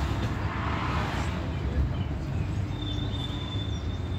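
Steady low engine and road rumble inside a moving bus, heard from a passenger seat. A thin, steady high whine comes in about three seconds in.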